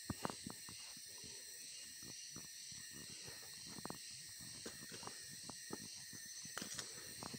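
Steady chorus of forest insects, a continuous high drone in several bands. Scattered soft steps and crackles on the forest floor are heard over it.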